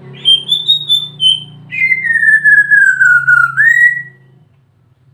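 White-rumped shama (murai batu) singing: a few short high whistled notes, then one long whistle that slides down in pitch and turns up at the end, stopping about four seconds in. A faint low hum runs beneath it.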